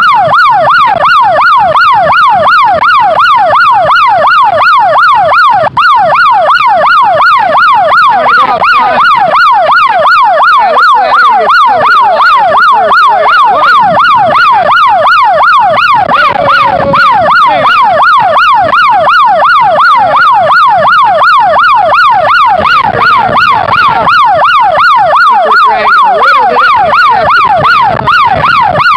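A loud, siren-like warbling tone that sweeps up and down in pitch several times a second, without a break.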